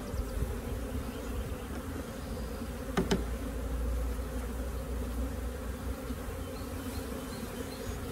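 A swarm of honeybees buzzing in a steady hum around an open hive as frames are lifted out to shake the bees in. A short sharp knock about three seconds in.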